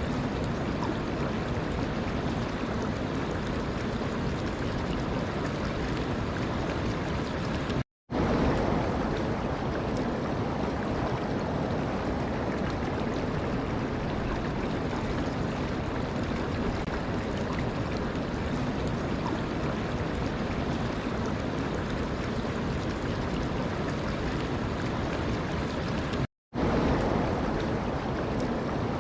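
Steady rushing of running water, an even wash of sound. It cuts out to silence for a split second twice, about eight seconds in and near the end, and resumes a little louder each time.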